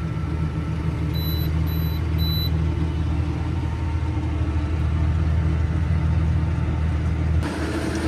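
Steady low drone of a tractor engine heard from inside the cab while pulling a working potato harvester, with three short high beeps from the cab controls about a second in. Near the end the sound changes to an outdoor mix of engine and machinery noise.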